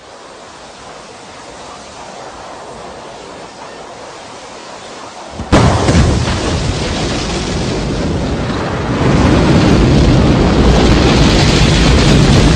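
Space Shuttle launch rumble: a low hissing rumble builds slowly, then a sudden loud crackling blast comes in about five and a half seconds in and grows louder again near nine seconds as the engines come up to full thrust at liftoff.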